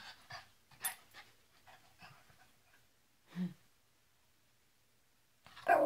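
Small dog making short vocal sounds: a brief low whine a little over three seconds in, then a much louder yelp near the end.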